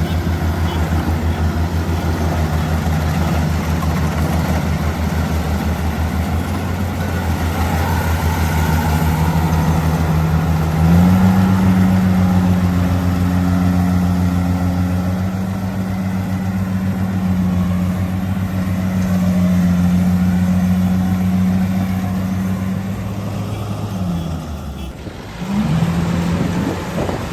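Rice combine harvester's engine running steadily. Its pitch steps up about eleven seconds in as it revs higher, then sags briefly near the end and picks back up.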